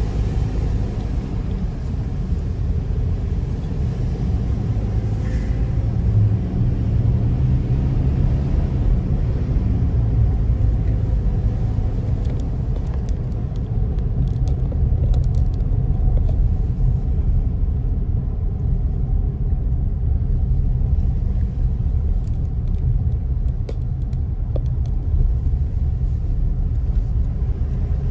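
A car driving along a road, a steady low rumble of engine and road noise.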